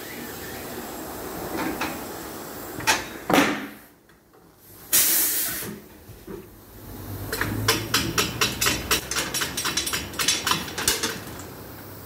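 Pneumatic tyre-changing machine at work: a few sharp clicks, then a short burst of compressed-air hiss about five seconds in, followed by a quick run of clicks, about four a second, over a low hum for several seconds.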